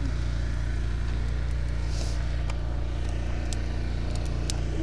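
A steady low motor-like hum, with a few sharp pops from a small wood fire crackling in a steel fire ring.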